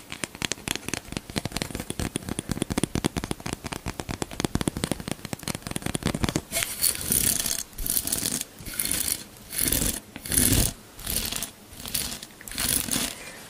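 Fingers flicking the plastic bristles of a hairbrush close to the microphone, making a fast run of sharp clicks. About halfway through it changes to slower swishing strokes, roughly two a second, as the bristles are brushed close to the microphone.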